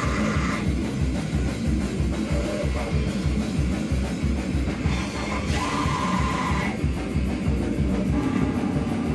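Live heavy, distorted rock band playing loud, with fast, dense drumming under distorted guitar.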